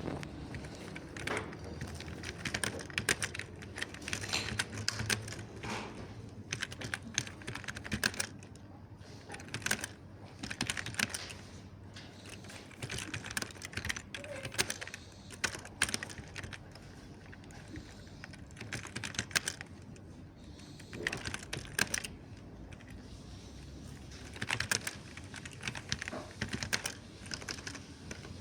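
Mechanical keyboard being typed on in irregular bursts of key clicks, with short pauses between runs.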